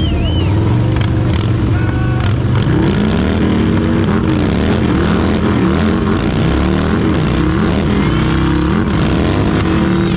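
Motorcycle engine revving hard through a burnout, the rear tyre spinning against the pad. The revs hold fairly steady for the first couple of seconds, then rise and fall repeatedly as the throttle is worked.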